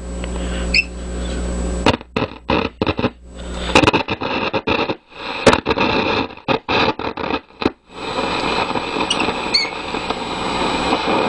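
Vintage Lafayette tube radio's speaker giving hum and static, then crackling and cutting in and out from about two seconds in as the band switch is turned: the switch contacts are dirty and noisy. Near the end it settles into steady shortwave static with faint whistles.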